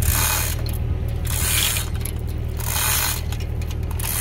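Tractor engine running steadily under a rasping metallic noise that repeats about every second and a quarter, four times, as chains and a sickle-bar mower cutter bar hang from a lifting boom being raised.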